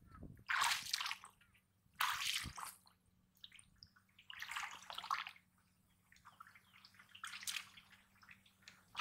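Shallow, muddy pond water sloshing and splashing in about four short bursts as a person wades through it and reaches into it with their hands.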